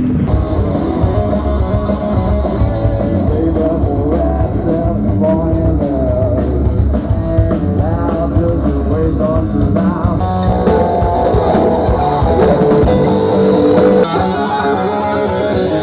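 Rock band playing: guitars over a drum kit.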